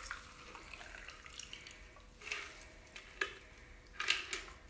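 Green cucumber cocktail poured from a metal cocktail shaker through a strainer into a stemmed glass: a faint pour of liquid with a few light clicks.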